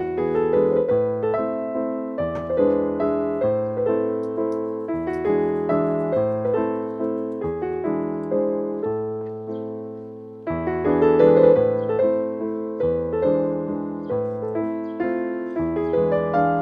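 Background piano music, a steady flow of notes, with a louder phrase coming in about ten seconds in.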